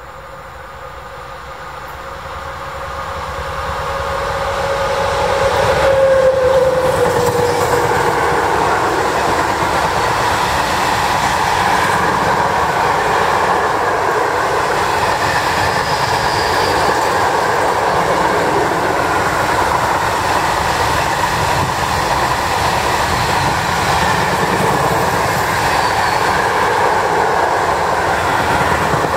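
Freight train hauled by an electric locomotive approaching and passing close by, then its long string of open-top freight wagons rolling past with steady rumbling and wheel clatter. It grows louder over the first six seconds, and a steady tone drops slightly in pitch as the locomotive goes by.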